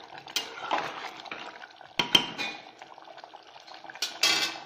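A metal ladle stirring mutton curry in a pressure cooker pot, scraping and clinking against the metal sides, with sharp knocks about two seconds in. A louder clatter of metal comes near the end.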